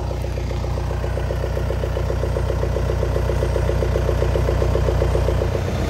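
Off-road 4x4 pickup's engine idling steadily, slowly growing a little louder.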